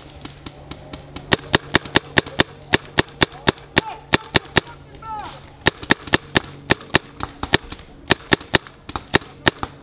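Paintball marker firing quick strings of shots, about five a second, in three bursts with short pauses about five and seven and a half seconds in.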